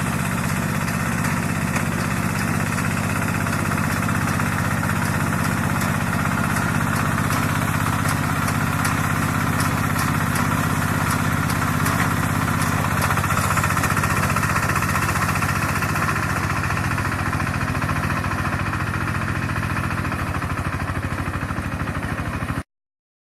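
Mini rice combine harvester's engine running steadily at an even speed, with a fast regular pulse. The sound cuts off suddenly near the end.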